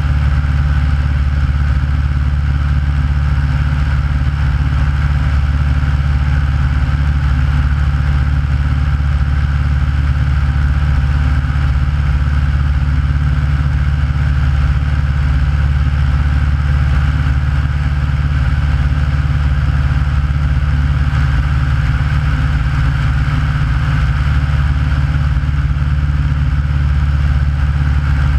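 Aeronca light aircraft's piston engine and propeller running steadily in flight, heard from a camera mounted outside on the airframe, with a constant low hum and a rushing noise above it.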